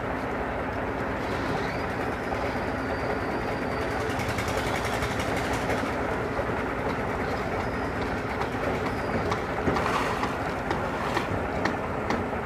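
Steady running of heavy machinery, with a few sharp knocks near the end.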